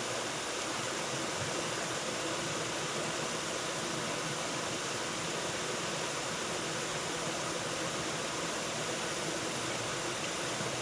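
Waterfall: the steady rush of falling water, unchanging throughout.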